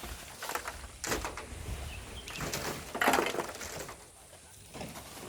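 Hand tools scraping and striking volcanic sand and stones in a series of separate strokes, the loudest about three seconds in.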